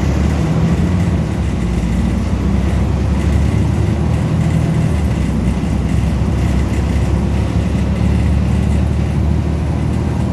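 Volvo B340M bus engine running under way, a steady low drone that shifts slightly in pitch a few times as the load changes.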